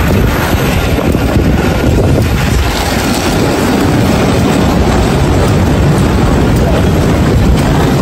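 Loud, steady airport apron noise: the rumble of aircraft and ground-vehicle engines, mixed with wind buffeting the microphone.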